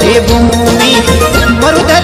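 Rajasthani folk song playing as background music: a voice sings a wavering melody over instruments and a steady low beat.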